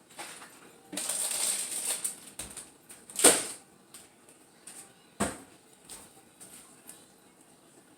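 Food containers and packages being taken out of a refrigerator and set down: a rustle lasting about a second, then two sharp knocks about two seconds apart, with small clicks between.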